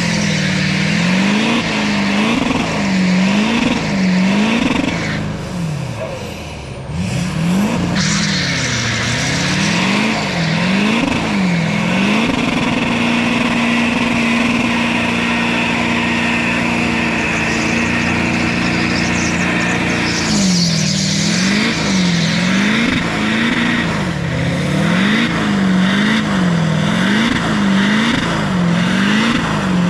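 Duramax diesel engine in a pickup revving hard through a third-gear burnout, the rear tyres spinning on concrete. The revs rise and fall over and over, hold steady for several seconds in the middle, then rise and fall again.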